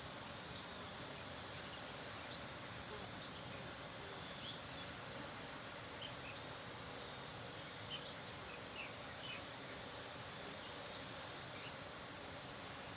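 Bees humming around flowers under a steady outdoor hiss, with birds giving short high chirps scattered throughout.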